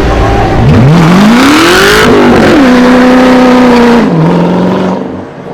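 Car engine accelerating: the pitch climbs for about a second, drops sharply as it shifts up, holds steady, then steps down again and fades near the end.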